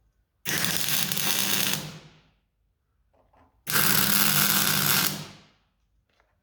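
MIG welder laying two spot welds to tack a forged lip onto an axe head: two buzzing bursts of about a second and a half each, a couple of seconds apart.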